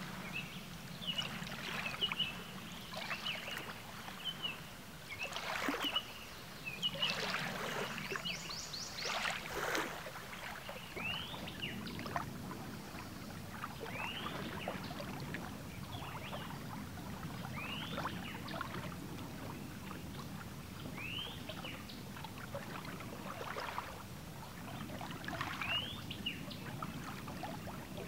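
Lakeshore sounds: water lapping and splashing at the shore. Birds chirp, and in the second half one bird repeats a short rising call about every three seconds.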